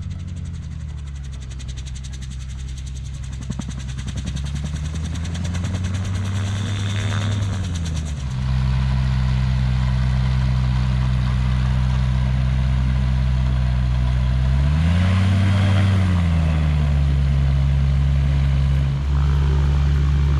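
Rotax 915 turbocharged flat-four engine of a gyroplane running at low power while taxiing, growing louder as it comes closer. Its pitch rises about six seconds in and steps up near eight seconds, then briefly rises and falls again around fifteen seconds as the throttle is blipped.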